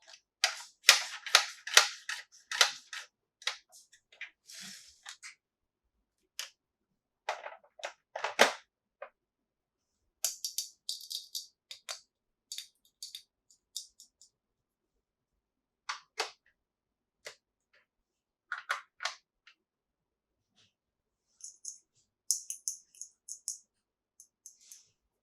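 Small plastic toy pieces clicking and clacking as they are handled, with a quick run of clicks at the start and scattered single clacks after. Short bursts of plastic packaging crinkling come about ten seconds in and again near the end.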